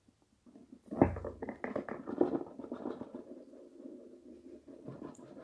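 A cardboard Apple iPad box being shaken to slide the inner tray out of its tight-fitting lid. There is a dull knock about a second in, then a run of light knocks and cardboard rubbing that fades to faint scraping, and the tray still does not drop out.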